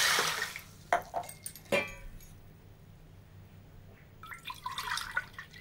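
Water poured from a small bowl onto granulated sugar in a steel kadhai for sugar syrup, splashing loudly for about half a second at the start. A few light clinks follow, and a softer splashing comes near the end.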